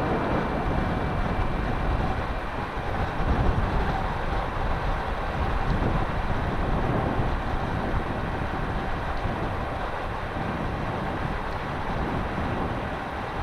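Wind buffeting the microphone: a steady rumbling noise with no clear pitch.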